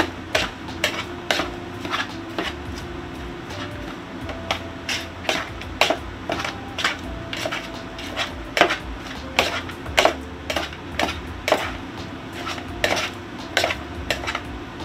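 A metal utensil clinking and scraping against a bowl, with sharp, irregular clinks about once or twice a second, as food is stirred or mixed.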